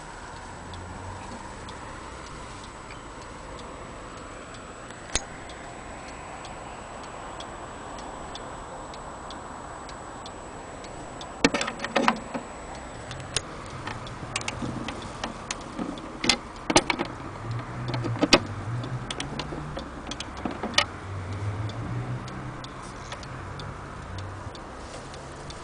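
Wall clock with a Franz Hermle platform-escapement Westminster movement ticking. From about halfway, a brass winding key fitted into the dial gives an irregular run of sharp metallic clicks that lasts several seconds.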